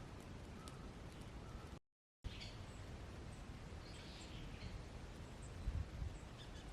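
Faint outdoor ambience with a low rumble and a few faint, short bird calls, broken about two seconds in by half a second of dead silence where the audio is cut.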